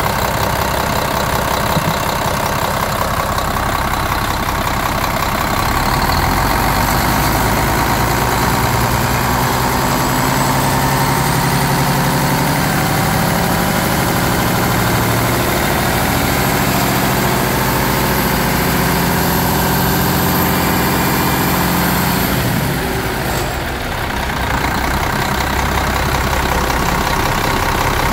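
A 2007 Cummins ISM 10.8-litre inline-six diesel running at idle with a steady clatter. Over the middle stretch a faint high whine slowly rises in pitch, then drops away about 23 seconds in as the sound briefly dips before settling back to idle.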